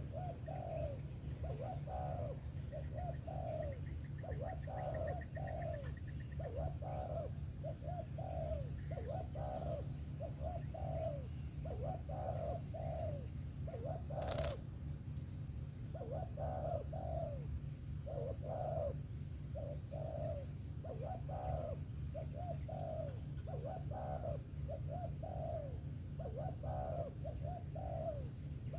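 Spotted dove cooing over and over, its low coos following one another in a steady series. A single sharp click sounds about halfway through, over a steady low hum.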